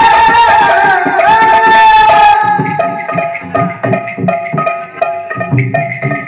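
Live Odia kirtan music. For the first two seconds or so a held, wavering melodic line sounds over the drumming. Then it drops out, leaving a two-headed barrel drum (khol) and high metallic ticks playing a quick, even rhythm of about three to four beats a second.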